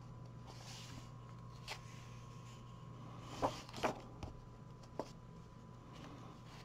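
A page of a paperback coloring book being turned by hand: a few soft paper rustles and light taps, the strongest about three and a half to four seconds in, over a faint steady hum.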